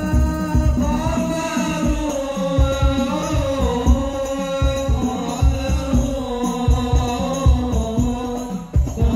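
A hadrah ensemble performing: several men sing an Islamic devotional song together, amplified, over a fast, steady pattern of low drum beats.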